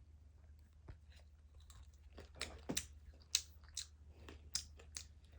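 A person chewing candy close to the microphone: soft, irregular wet clicks and small crunches.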